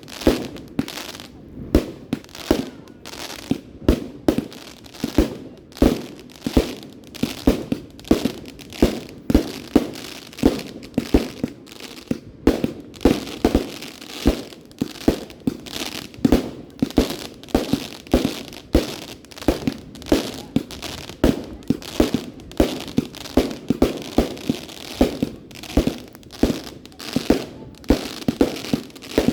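Aerial fireworks bursting in a rapid barrage, two or three bangs a second without a break.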